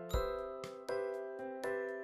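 Background music: a melody of short struck notes that ring on, with a low beat about every two seconds.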